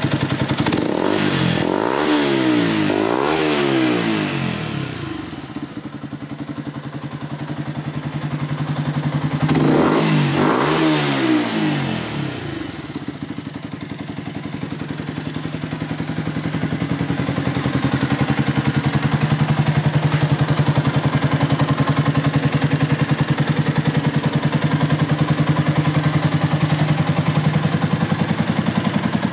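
Yamaha YZF-R125's 125 cc single-cylinder four-stroke engine, breathing through an aftermarket Akrapovic silencer, blipped up and down a couple of times, then again about ten seconds in. From about fourteen seconds in it settles to a steady idle.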